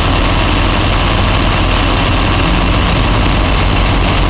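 Ford flatbed tow truck's engine idling steadily, a loud, even, low running sound.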